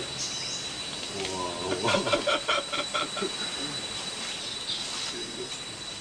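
Tropical forest sounds: a steady high-pitched insect whine and brief high bird chirps. About two seconds in comes a loud, rapid run of pulsed calls, around six a second, lasting about a second and a half.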